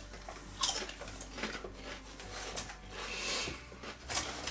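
Quiet crinkling of a foil-lined potato chip bag and crunching of ridge-cut potato chips being eaten. There are a few short crackles, and a longer rustle of the bag about three seconds in.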